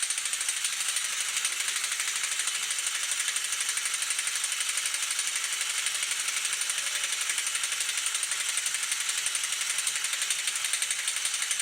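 Pneumatic wrench running continuously on a seized front-hub fastener, a loud, rapid, even rattle that does not break it free.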